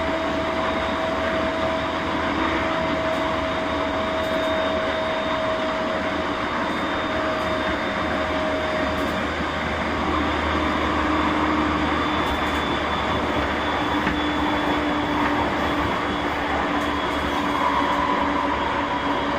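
Running sound of a JR East E231 series 1000 commuter train with renewed traction equipment, heard aboard while the train is in motion. Steady rail and wheel noise, with a motor whine whose pitch changes about halfway through.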